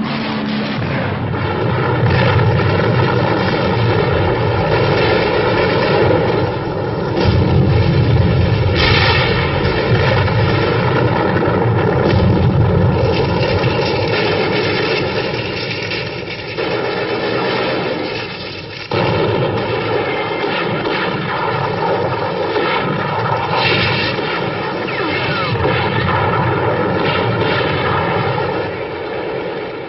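Propeller aircraft engines droning steadily, a dense, even roar with a short dip about two-thirds of the way through.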